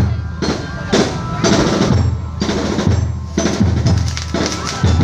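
Loud drumming with music, about two heavy beats a second, over a steady low hum.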